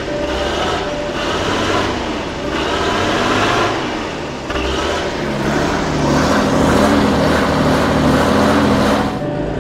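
A motor vehicle engine running, its pitch wandering up and down as it is revved, getting somewhat louder in the second half.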